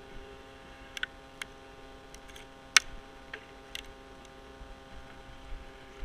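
Scattered sharp clicks and knocks of a tree climber's gear being handled at the trunk, the loudest about three seconds in, over a steady hum.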